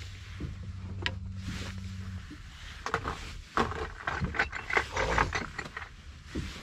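Irregular mechanical clicking and rattling from a baitcasting jigging reel being handled, bunched in the middle. A steady low hum stops about two seconds in.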